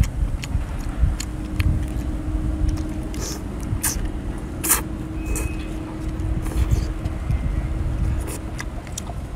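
Wet mouth clicks and slurps of razor clams being bitten and sucked from their shells, over a low rumble and a steady low hum.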